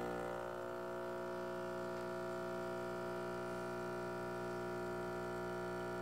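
Rancilio Silvia Pro X espresso machine's vibratory pump running steadily during an espresso extraction, giving an even, buzzing hum.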